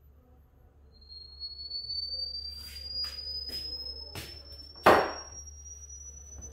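A thin, high electronic tone slowly rising in pitch, with a few scattered knocks and rustles. The loudest is a single thump about five seconds in.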